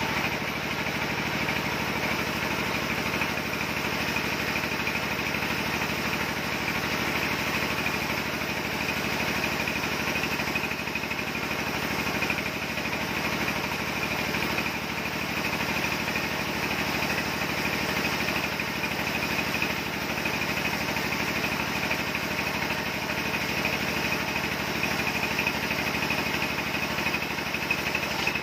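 Horizontal log bandsaw mill running steadily as its blade saws through a log of red hardwood, a continuous machine drone with a higher steady whine over it.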